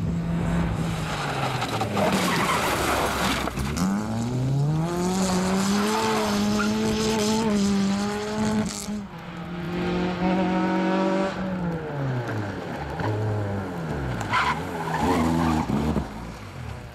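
Small hatchback racing cars driven hard around a tight tyre-marked course. An engine revs up and holds high, drops away as the throttle is lifted, then blips up and down in quick bursts near the end. Tyres squeal and skid through the turns.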